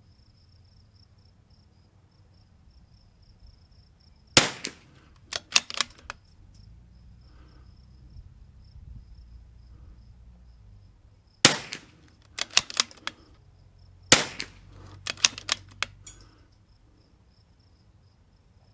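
Shots from a RimX bolt-action .22 LR target rifle firing match rimfire ammunition: three sharp cracks, about seven and then three seconds apart, each followed by a quick run of lighter clicks.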